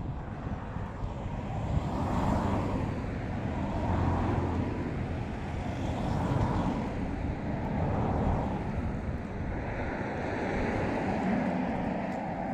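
Road traffic passing close by: several vehicles, a van among them, go by one after another, each rising and fading.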